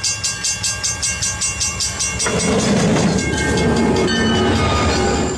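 A train running with a rapid, even clatter of about five beats a second. About two seconds in, this gives way abruptly to a louder, denser train noise with steady tones through it, which cuts off sharply near the end.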